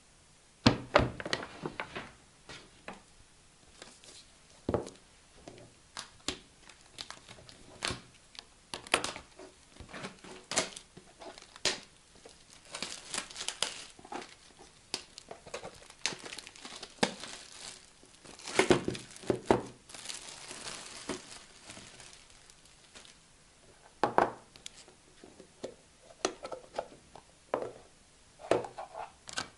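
Paper shopping bag and plastic packaging rustling and crinkling in irregular bursts as purchases are unpacked, with scattered light clicks and knocks of clear plastic lidded boxes being handled and pulled apart.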